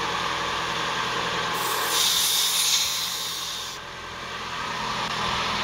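Air hissing out of a car tyre's valve for about two seconds while a tyre inflator's air chuck is pushed on and clamped, over the steady hum of the car's engine idling.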